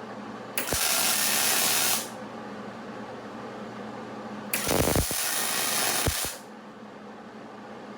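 MIG welding arc crackling in two short bursts of about a second and a half each, like tack welds, with a steady low hum between them.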